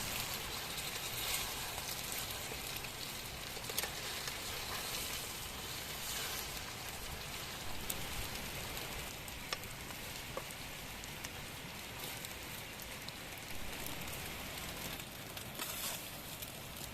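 Food sizzling as it fries in a pan: a steady hiss with scattered small pops and crackles.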